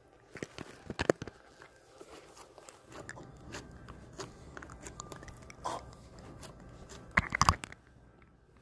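White slime squeezed and kneaded by hand, making sticky squelches and small crackling pops, with the loudest pops about a second in and near the end.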